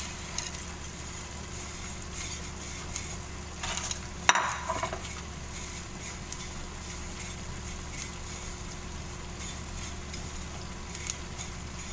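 Butter sizzling in a hot pan while a utensil stirs and scrapes, with scattered small clinks of metal; one sharp knock about four seconds in.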